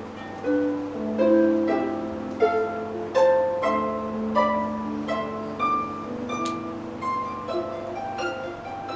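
Concert harp played solo: a steady flow of plucked notes in broken chords, each ringing on over held low bass notes.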